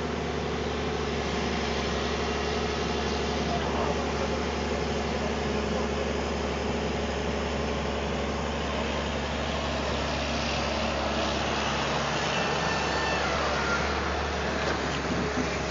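Heavy diesel engine of earthmoving machinery running steadily at the sand pit, a continuous low drone with a steady pitch.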